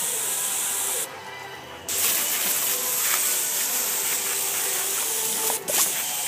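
Garden hose spray nozzle hissing as it shoots a steady jet of water, cut off for under a second about a second in, then spraying again.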